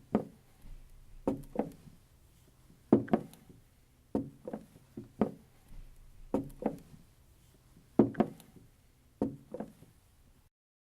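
A series of hollow wooden knocks in a small room. They come mostly in pairs about a quarter second apart, with a pair roughly every second or so.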